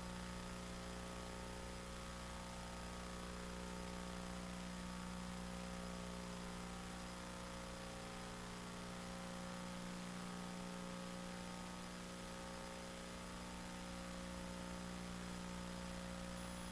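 Steady electrical mains hum with a faint even hiss, unchanging throughout, with no other sound.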